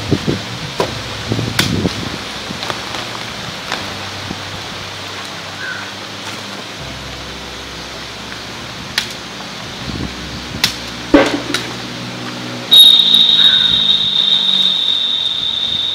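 Scattered knocks and snaps of a wooden stick being cut and handled, with one loud woody knock about eleven seconds in, over a steady background hiss. About three seconds before the end, a steady high-pitched buzz starts suddenly and keeps going; it is the loudest sound.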